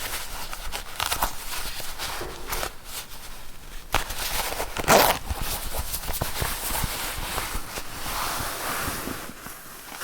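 Zipper worked back and forth in a run of short pulls, the teeth and slider clicking and rasping. The loudest pull comes about five seconds in, and a longer, smoother pull comes near the end.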